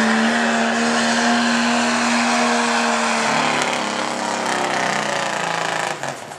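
Diesel pickup truck engine at full throttle while pulling a sled, with a steady high engine note. About three seconds in the note drops lower and wavers, and about six seconds in the throttle is let off and the sound falls away sharply.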